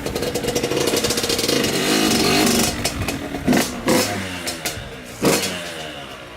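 Yamaha YZ85's 85cc single-cylinder two-stroke engine running on its stock silencer, whose packing the owner thinks is probably worn down. It runs steadily, then the throttle is blipped three times in the second half, each rev falling back toward idle.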